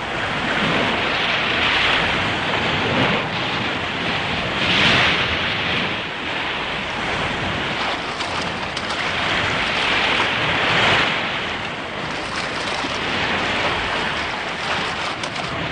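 Rough, stormy sea: waves surging and crashing in a continuous rushing noise that swells and falls back several times.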